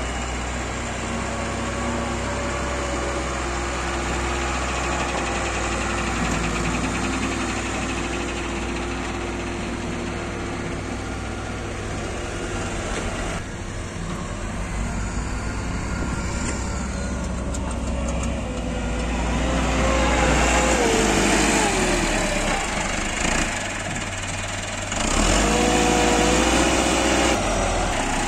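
Massey Ferguson 385 diesel tractor engine running steadily while pulling a loaded tipping trolley. It gets louder in the last third as the engine is revved, with the trolley bed being raised to tip the soil.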